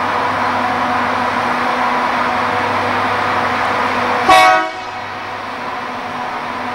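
Steady running noise of a passenger train approaching, then about four seconds in the locomotive's horn gives one short toot.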